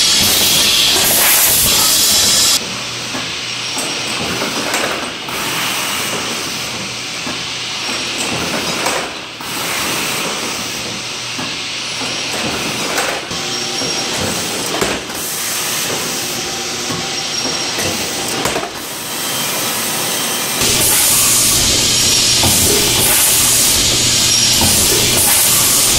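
Automatic rotary pouch packing machine running: a steady hiss of compressed air with scattered mechanical clicks and knocks from its grippers and mechanisms. The hiss is loud at first, drops away about two and a half seconds in, and comes back loud about twenty seconds in.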